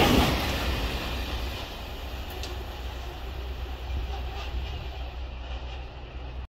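Freight train of covered hopper wagons passing on the rails, the sound fading over the first two seconds to a low, steady rumble as the tail of the train moves away.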